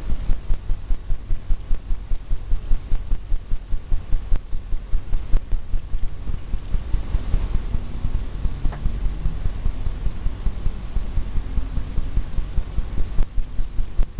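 Paint brush tapping repeatedly against a stretched canvas while dabbing in evergreen trees, making dull low thumps about three times a second.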